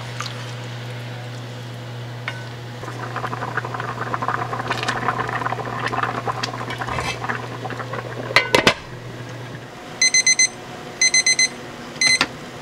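Chicken stew bubbling in a frying pan as it comes to the boil, over a steady low hum. About eight and a half seconds in, a glass pot lid clinks onto the pan. Then a digital kitchen timer beeps in three short bursts of rapid beeps.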